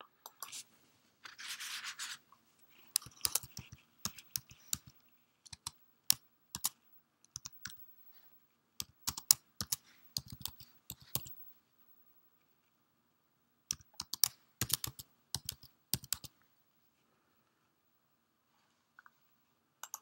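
Computer keyboard being typed on: irregular key clicks in several short bursts, with a brief scratchy rustle near the start.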